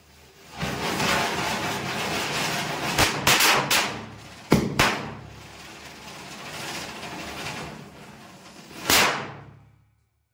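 Diwali ground chakkar spinner fizzing with a loud hiss, while small mirchi firecrackers around it go off in sharp bangs: a quick run of about six pops between three and five seconds in, then one more bang near the end.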